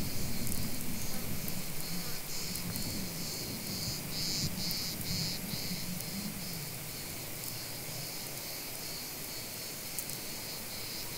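Cicadas buzzing in a high, pulsing chorus, with a low rumble that fades out over the first half.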